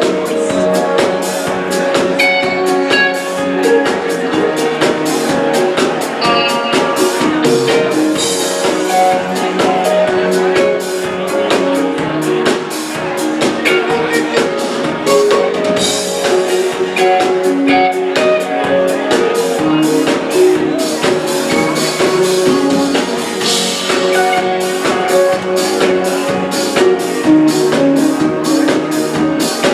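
Live rock band playing an instrumental stretch: guitar lines over a drum kit keeping a steady beat.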